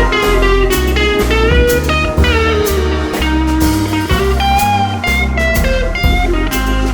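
Instrumental music: a guitar melody with notes that bend and glide in pitch, over a bass line and a steady drum beat.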